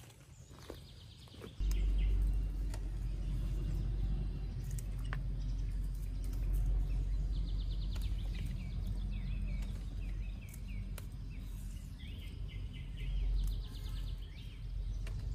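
Birds call in short, rapid trills several times over a steady low rumble that starts suddenly about a second and a half in. A few sharp snaps come from fresh green beans being broken by hand.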